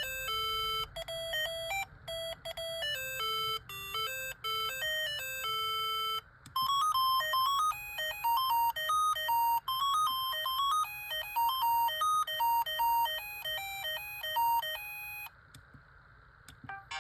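Siemens A55 mobile phone playing its ringtones, electronic melodies of clean, beeping notes. One tune ends about six seconds in, a second, busier tune plays until about fifteen seconds in, and another begins at the very end.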